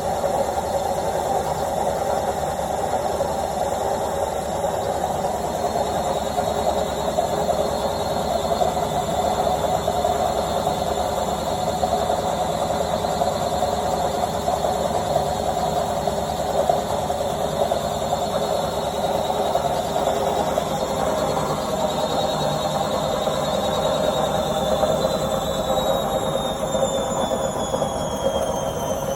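Washing machine on its spin cycle at top speed (1200 rpm): a steady loud whirring with a high, thin motor whine above it. Near the end the whine starts to fall in pitch as the drum begins to slow.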